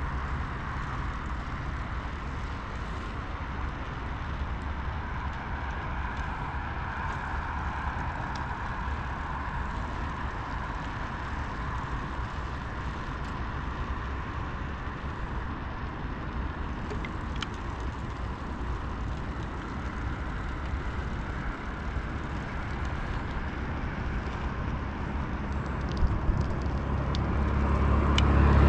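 Steady road and engine rumble of a moving car, heard from inside, growing louder near the end.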